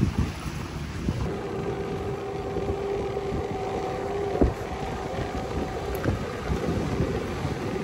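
Wind buffeting the microphone, a rough low rumble throughout. From about a second in, a steady humming tone is heard under it; it stops abruptly with a sharp knock about four and a half seconds in.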